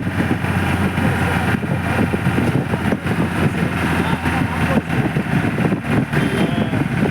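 An old jeep's engine running steadily while the jeep is driven, heard from inside the vehicle, with a constant low hum.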